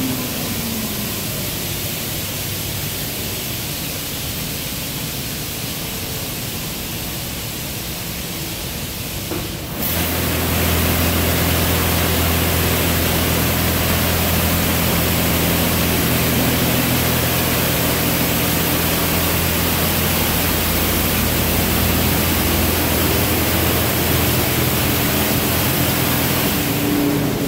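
WashWorld Razor touchless car wash spraying a pickup truck, a steady hiss of water jets and mist in the enclosed bay. About ten seconds in, the spray grows louder as a pump motor comes on with a steady low hum.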